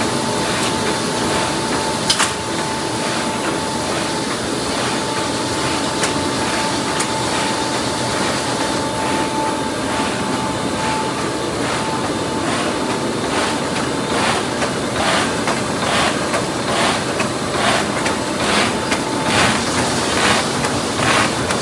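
Lemo 110 cm hot-slicing plastic bag cutting machine running: a steady mechanical noise with a faint steady whine, and from about halfway a regular clacking of its cutting strokes, a little under two a second.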